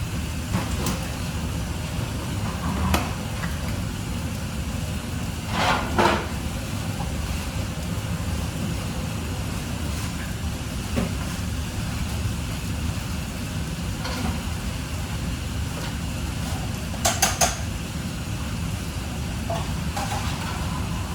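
Kitchen prep noise: occasional knocks and clatters of utensils and dishware, with a quick triple clatter near the end, over a steady low rumble.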